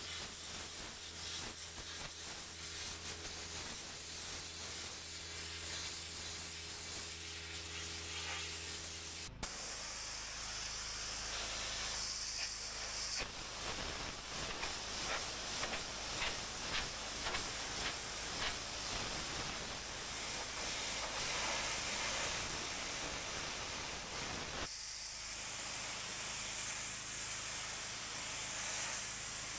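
Pressure washer lance jetting high-pressure water onto sandstone paving: a steady hiss of spray with a steady low hum of the machine underneath. The spray sound changes abruptly about nine seconds in, growing brighter and more spattery, and shifts again near the end.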